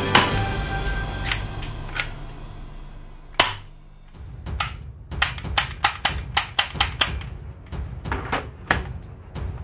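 Black plastic toy pistol fired over and over: a few separate sharp snaps, then a fast run of about a dozen at roughly five a second, then a few scattered ones.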